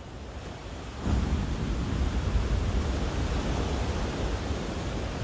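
Heavy surf breaking on a beach and against the hull of a stranded fishing boat: a steady rushing wash with a strong low rumble, swelling up about a second in.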